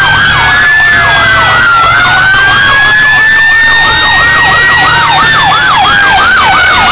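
Several fire truck sirens sounding loudly at once as the trucks pass: a slow wail rising and falling, overlapped by a fast yelp sweeping up and down about twice a second, with a low engine rumble underneath.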